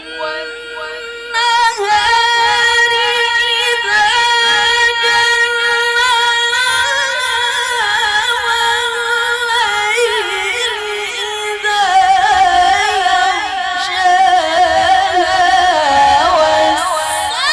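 A woman reciting the Qur'an in the melodic qiro'ah style, drawing out long ornamented phrases with wavering pitch, with only a brief breath about a second and a half in.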